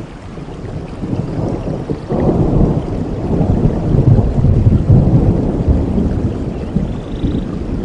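Thunder rumbling over steady rain. A deep rumble swells sharply about two seconds in, is loudest around four to five seconds, then slowly eases off.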